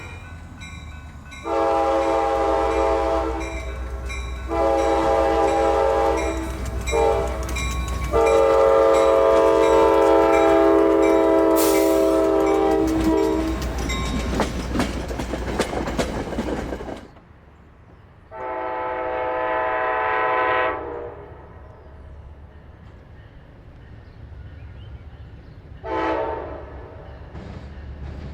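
Nathan K5LA five-chime locomotive air horn sounding two long blasts, a short one and a final long blast, the grade-crossing signal. The train then passes with a low rumble and wheel clicks. After a break, a K5LA horn sounds another long blast and, later, a short one.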